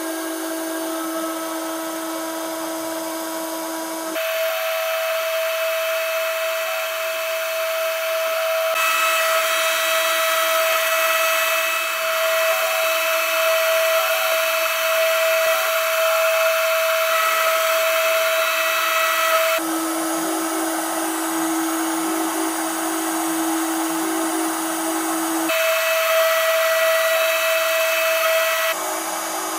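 CNC milling machine's spindle running steadily with an end mill cutting an aluminium plate: a steady whine over a cutting hiss. The pitch and tone shift abruptly several times.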